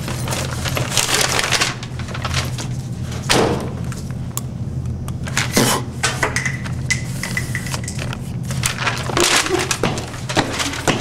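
Rustling and knocks as things are handled in a backpack, then a marker squeaking on paper in short strokes about six seconds in, over a steady low hum.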